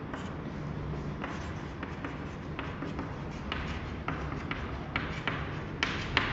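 Chalk writing on a chalkboard: an irregular run of short taps and scratches as the chalk strikes and drags across the board, with two sharper taps near the end, over a faint steady low hum.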